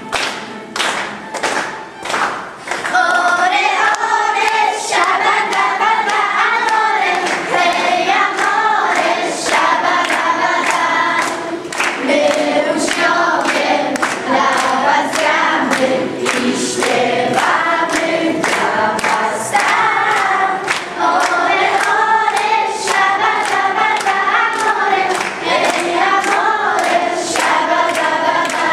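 A group of children singing a song together over a steady beat of about two strokes a second. For the first three seconds or so only the beat is heard, then the singing comes in.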